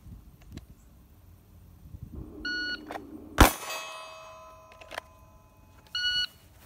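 Shot timer's start beep, then just under a second later a single shot from a Glock 45 9mm pistol fired on the draw from the holster, followed by a ringing tone that fades over about a second and a half. Near the end the timer gives a second short beep of the same pitch.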